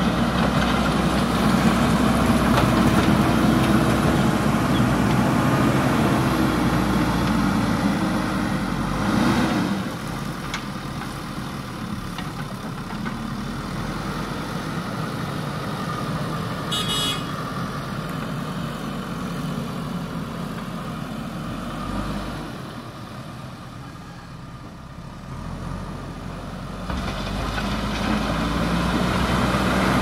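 JCB backhoe loader's diesel engine running as the machine pushes and levels loose soil with its front bucket. It is loud for the first several seconds, drops to a lower level through the middle, and builds up again near the end. A brief high squeal about halfway through.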